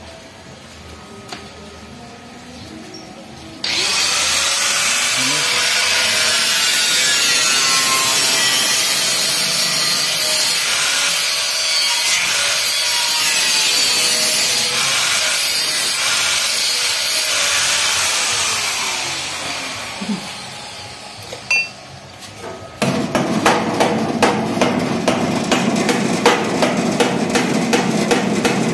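Angle grinder cutting into the edge of a steel gate door, starting a few seconds in and running steadily before winding down, to trim the edge where the door binds against its frame. Near the end, a fast, rough clattering takes over.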